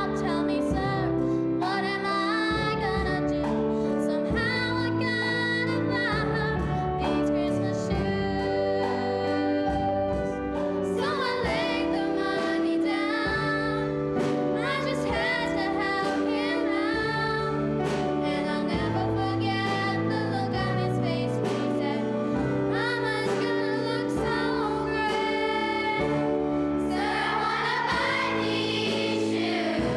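Music: singers performing a slow holiday song over instrumental accompaniment, with more voices joining near the end.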